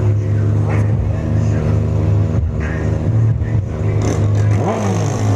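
Car sound system playing bass-heavy music at high volume, with a deep bass note sustained throughout and a short sliding pitch near the end.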